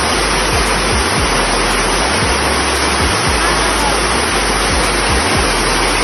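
Steady rush of water pouring down a small rock waterfall, mixed with background music that has a steady beat about once a second.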